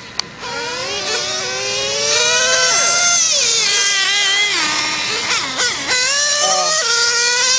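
Small nitro RC car engines revving hard in a high-pitched wail, their pitch climbing and dipping as the throttle is worked, with a brief drop in revs about two seconds before the end before they climb again.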